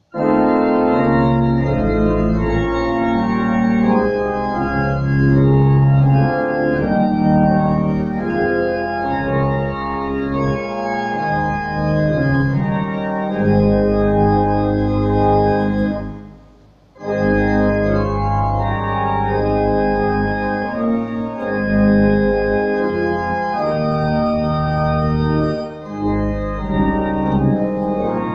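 Organ playing a hymn tune in slow, held chords, starting abruptly, with a brief break a little past halfway before the next phrase.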